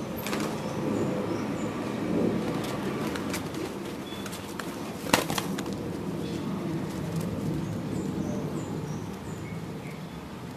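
Domestic pigeons cooing steadily, with scattered wing flaps and clicks and one sharp knock about five seconds in.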